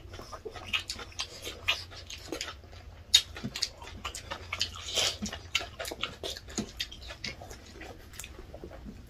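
Close-up eating sounds of two people eating rice and chicken by hand: wet chewing, lip smacks and quick irregular clicks of the mouth, with one sharper click about three seconds in.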